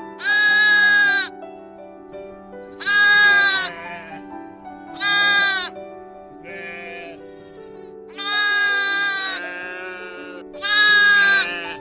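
Sheep bleating: five loud bleats of about a second each, a few seconds apart, over soft background music.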